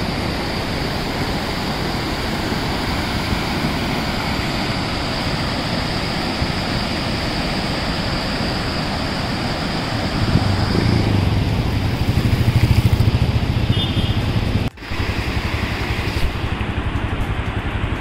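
Steady rush of a muddy mountain river in flood, running very fast and high. About ten seconds in, a low rumble swells for a few seconds, then fades.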